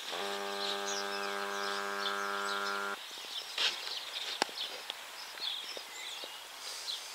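Carp bite alarm sounding one steady, unbroken tone for about three seconds before cutting off abruptly, signalling a small take on the rod. Birds chirp in the background throughout, with a couple of sharp clicks later on.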